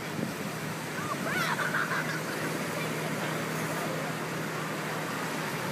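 Gulls calling, a few short cries about a second and a half in, over a steady beach background of people's voices.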